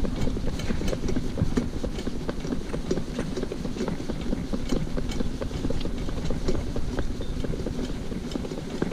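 Shetland pony's hooves clip-clopping on tarmac, with the harness cart's wheels rumbling over the road and its frame and fittings rattling.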